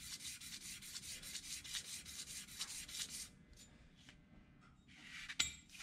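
Steel knife guard rubbed in quick back-and-forth strokes on sandpaper laid flat on a granite slab, truing its front face. The strokes stop a little over three seconds in, and a light click comes near the end.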